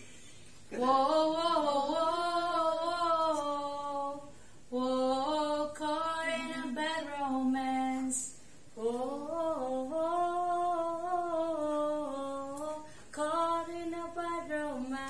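A woman singing a slow melody alone, unaccompanied, in four long phrases of held, gliding notes with short breaths between them.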